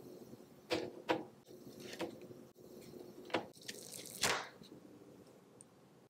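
Baked ladyfinger cookies being peeled by hand off parchment paper: a handful of short crackles and taps, with one longer rustling crackle about four seconds in, over a faint steady hum.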